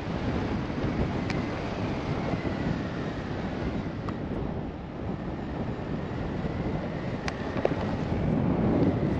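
Wind buffeting the microphone of a paraglider in flight: a steady rushing rumble that swells near the end.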